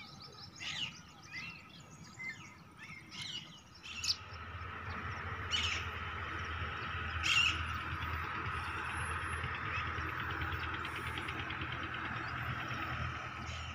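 Small birds chirping, with many short high calls in the first few seconds and a couple more later. A steady rushing noise with a low rumble comes in about four seconds in and carries on under them.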